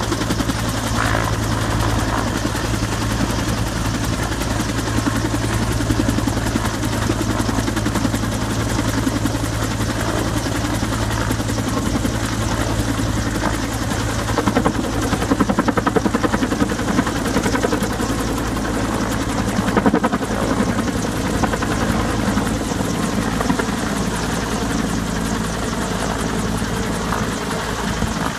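Helicopter in flight with a slung water bag: the rotor beats steadily over a constant low engine drone. It swells a little louder for a few seconds around the middle.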